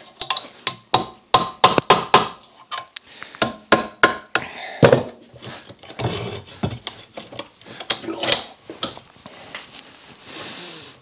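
Hand hammer striking a metal tool held against a workpiece: a rapid, uneven series of sharp metallic blows, some with a short ring. This is hammering to free stuck fasteners.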